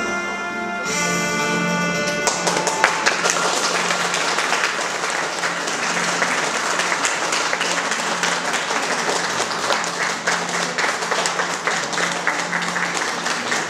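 Music with steady held notes that stops about two seconds in, followed by an audience clapping and applauding.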